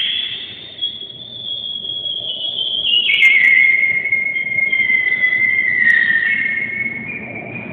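Alto saxophone played in its extreme high register: long, piercing held tones that waver and slide slowly in pitch, stepping down to a lower held note about three seconds in, then fading near the end.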